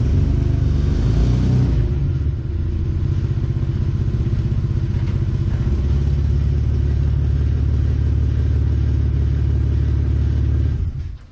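BMW 325xi's straight-six engine running steadily, with a brief rise in pitch a second or so in. The sound stops abruptly just before the end.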